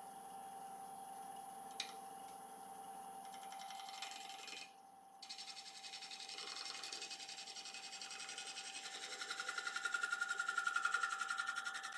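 Wood lathe running with a steady whine while a 55-degree gouge shear-scrapes the outside of a spinning applewood bowl blank, giving a hissing scrape that pulses rapidly. The cut stops briefly a little before the halfway point, then resumes and grows louder near the end.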